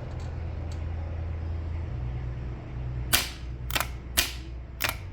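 Starter motor off a 2011 Mercury 250 OptiMax outboard clicking sharply as power is applied, about two clicks a second from about three seconds in. The drive gear throws out but the motor does not spin: the starter has failed. A steady low hum comes before the clicks.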